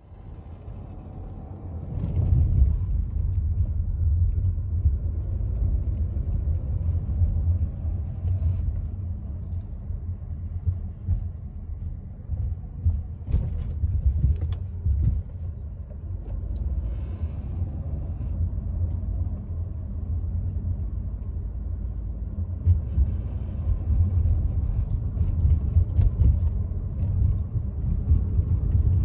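Cabin noise inside a Volkswagen Tiguan: a steady low rumble that builds up over the first two seconds and then holds, with a few faint, brief higher rustling sounds over it. The owner is hunting an intermittent noise in the car that sounds like paper against a fan, only more ringing.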